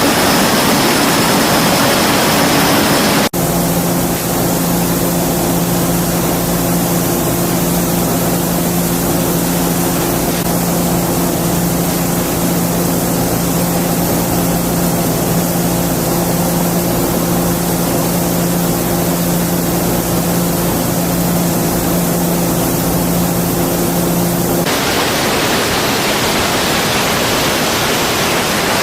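Loud, steady rushing noise with a low steady hum, changing abruptly about three seconds in and again near the end, as the sound cuts between shots.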